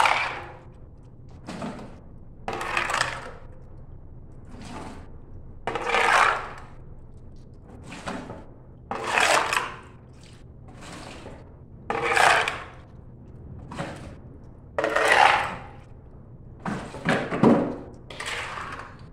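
A long-handled tool's blade scraping across the tiled floor of an empty swimming pool in repeated strokes, irregularly about one every second or so.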